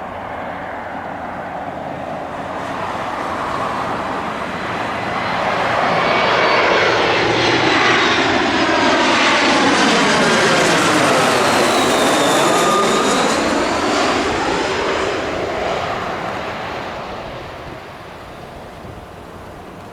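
Airliner's engines passing close by, swelling to a peak about midway and then fading away.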